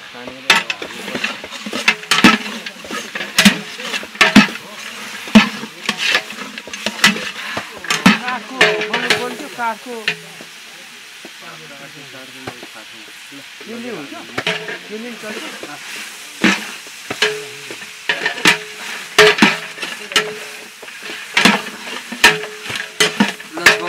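Long-handled metal ladle stirring buff (water-buffalo meat) curry in a large metal cooking pot, knocking and scraping against the pot again and again at an uneven pace. The knocking eases off for a few seconds in the middle, then resumes.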